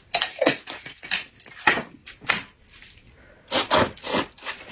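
Close-up eating sounds: a series of short wet slurps and mouth noises, with a cluster of loud slurps as a mouthful of noodles is sucked in, about three and a half seconds in.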